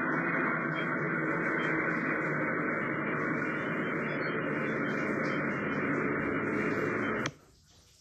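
Steady, muffled static hiss that cuts off abruptly about seven seconds in.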